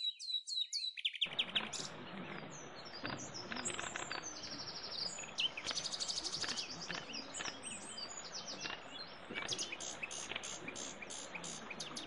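Several songbirds chirping and trilling in many quick, high notes, over a faint steady outdoor hiss.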